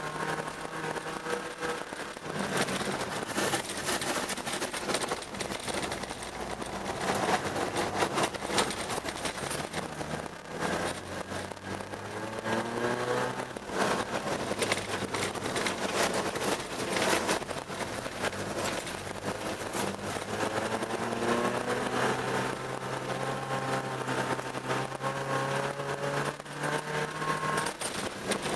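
Car engine heard from inside the cabin as the car is driven on a rutted ice and snow track, revving up and dropping back several times as it accelerates and shifts. Frequent knocks and rattles from the car running over the rough, rutted surface.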